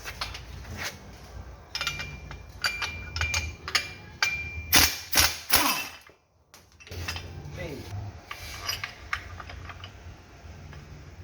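Metal tools and engine parts clinking and clanking during engine disassembly, with a few loud metallic strikes about five to six seconds in.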